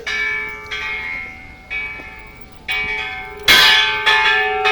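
Bells ringing: five struck strokes about one a second, each ringing on and overlapping the next, the last the loudest.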